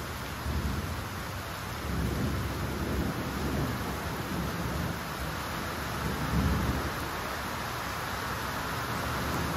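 Steady rain hissing, with low thunder rumbling beneath it. The thunder swells about two seconds in and again, louder, around six seconds in.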